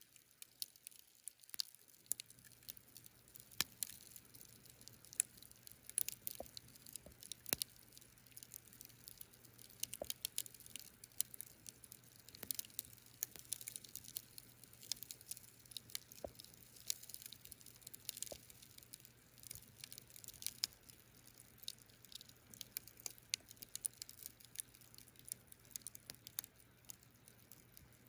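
Wood campfire crackling: irregular sharp pops and snaps several times a second, with an occasional louder snap.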